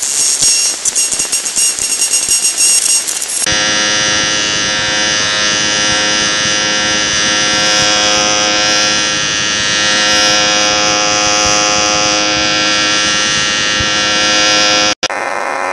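A steady electronic buzzing drone of many held tones, which starts suddenly about three and a half seconds in after a hissy stretch with a few high tones, and cuts off abruptly near the end.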